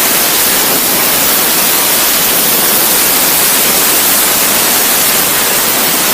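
Compressed air from an air compressor blasting a fidget spinner to spin it at high speed: a loud, steady hiss.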